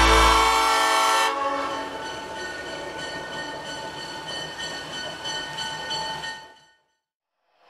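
A train horn sounding as one long steady chord over a train's rumble, fading out about six and a half seconds in and dropping to silence. The first second still carries the end of bluegrass fiddle music.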